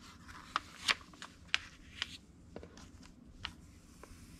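Glossy magazine page being turned and smoothed flat by hand, with a string of short, crisp paper crackles.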